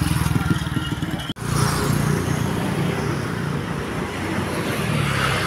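A vehicle engine running steadily with a low, even pulse, cut off for an instant about a second and a half in before it carries on. No telolet horn melody sounds.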